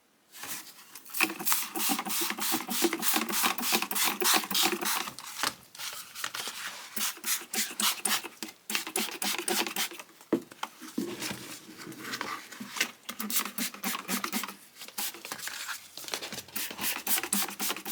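Ratchet handle of a vintage Shelton ratchet tool clicking rapidly as it is worked back and forth, pausing briefly about ten seconds in.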